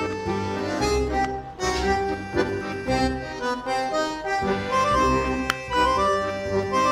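Background music with a steady bass line and a reedy, accordion-like lead melody.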